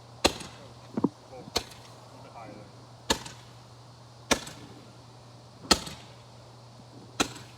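Handheld Roman candle firing, six sharp pops evenly spaced about a second and a half apart.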